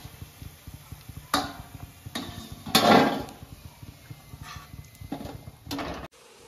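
Metal wire skimmer knocking against an iron kadhai and fried namak pare clattering onto a steel plate: a run of separate clanks, the loudest about three seconds in, over a low steady rumble.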